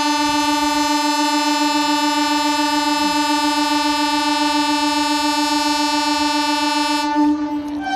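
Train horn sounding one long, steady blast. Near the end it falters and gives way to a different note.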